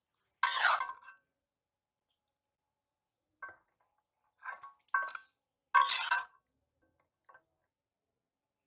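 Steel spatula scraping and clinking against a steel wok and a steel plate as cooked spinach is scooped out, in about six separate strokes with a metallic ring; the loudest come about half a second in and about six seconds in.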